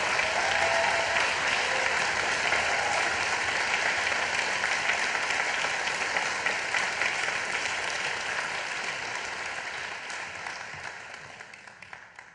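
Audience applauding, the clapping thinning out and fading away over the last two seconds.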